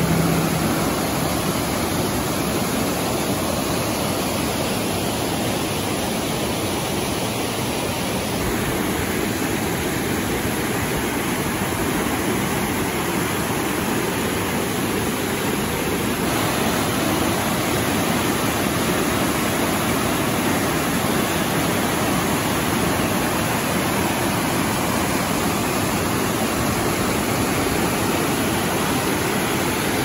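Fast mountain creek rushing and splashing over boulders in whitewater: a loud, steady rush of water that shifts slightly in tone about 8 and 16 seconds in.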